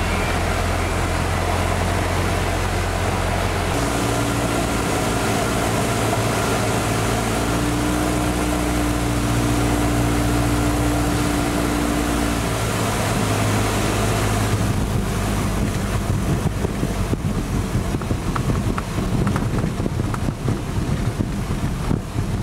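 Cessna 172 floatplane's engine and propeller running through a landing on a lake, heard inside the cabin: the engine note changes about four seconds in. From about fifteen seconds in the sound turns rougher and uneven as the floats run on the water, with wind noise.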